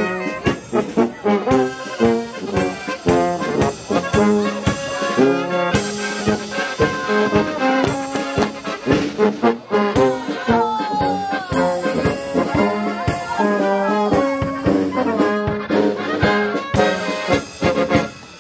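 Small brass band playing a dance tune with a steady beat; the music stops near the end.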